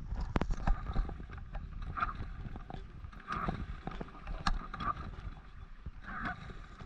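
Wind rumbling on the microphone around an inflatable boat, with scattered short knocks and splashy sounds; no engine is running.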